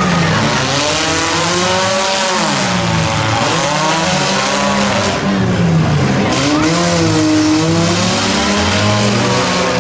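Several demolition derby compact cars' engines revving, their pitch rising and falling again and again and overlapping, with tyres spinning and squealing in the mud.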